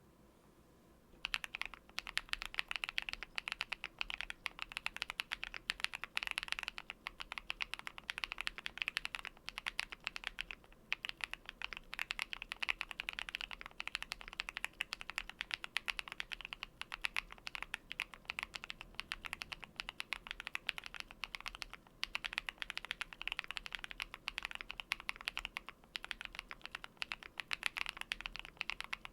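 Typing on a QwertyKeys Neo65 mechanical keyboard with lubed KTT Matcha linear switches, tape-modded and foamed: a fast, steady run of keystroke clacks. It starts about a second in, with brief pauses around a third and two thirds of the way through.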